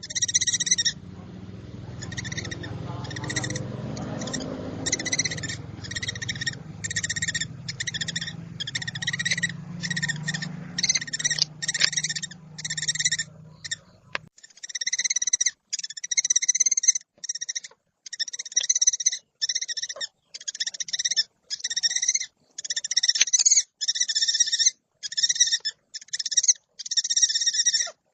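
Scops owl giving short, repeated rasping calls, about two a second, steadily throughout. A low hum runs underneath for the first half and cuts off suddenly about halfway through.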